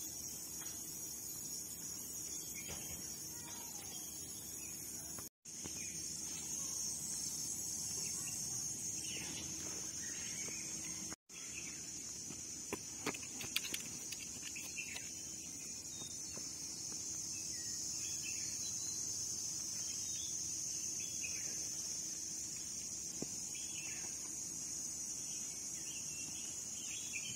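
Outdoor ambience of insects shrilling steadily at a high pitch, with scattered faint bird chirps. The sound drops out for an instant twice.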